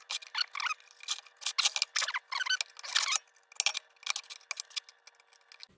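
A series of short, irregular scraping and rasping strokes of metal on metal as the bent tin parts of a kerosene lantern are worked by hand.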